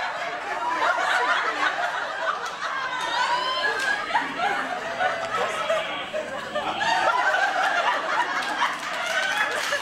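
Audience laughing and chattering, many voices overlapping steadily.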